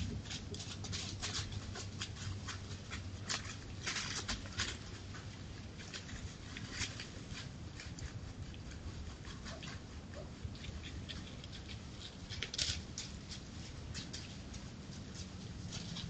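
Wolves' paws rustling and crackling in dry fallen leaves: irregular crisp clicks, thickest in the first few seconds, with a louder cluster about three-quarters of the way through, over a steady low hum.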